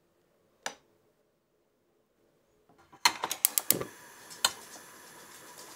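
One light tap, then about three seconds in a gas stove burner is lit: a quick run of sharp igniter clicks, then the flame burning with a steady hiss, with one more click a second or so later.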